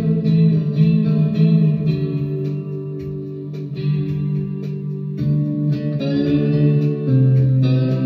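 Electric guitar, a salvaged Squier fitted with '57-62 Fender pickups, played with a slide: a steady series of picked notes, several a second, over low strings left ringing.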